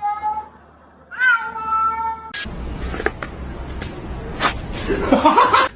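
Domestic cat meowing: a short meow, then a long drawn-out meow about a second in. This is followed by a noisier stretch with a few sharp knocks and a louder wavering cat cry near the end.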